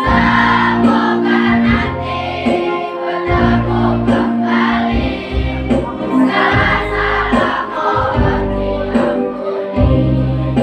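A choir of sixth-grade schoolchildren singing a song together.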